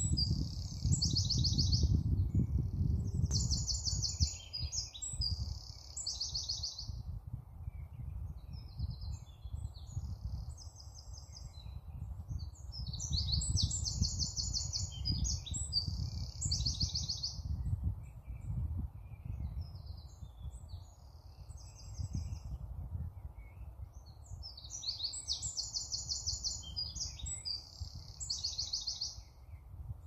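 A songbird singing high, bright phrases a few seconds long, full of rapid trills, repeated with pauses between. A steady low rumble runs underneath.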